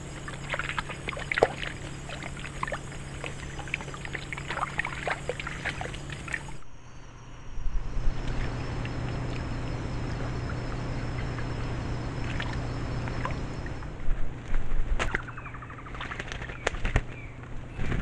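Trail-camera audio at a forest pool: short bird chirps over a steady hum, then, after a cut, water splashing and sloshing in loud surges as an animal moves through it.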